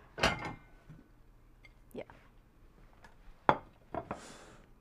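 Dishes and utensils handled on a kitchen counter: scattered knocks and clicks, the sharpest about three and a half seconds in, then a brief rustle near the end.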